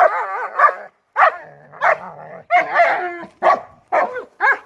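A German Shepherd barking repeatedly. It opens with a wavering, drawn-out bark-whine in the first second, then gives a string of about six short barks roughly half a second apart.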